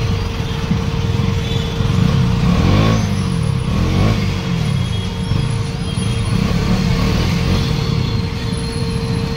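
KTM Duke 200's single-cylinder engine running on the move, its pitch rising and falling several times with throttle and gear changes, over a steady rush of wind.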